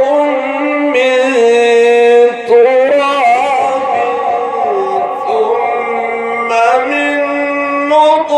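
A male reciter chanting the Quran in the melodic mujawwad style, drawing out one long ornamented phrase. His voice wavers and steps down in pitch, then rises to a higher held note near the end.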